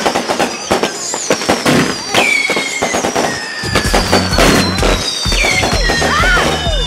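Fireworks going off: rapid pops, bangs and crackling, with long high whistles sliding down in pitch. About three and a half seconds in, music with a heavy bass beat comes in underneath.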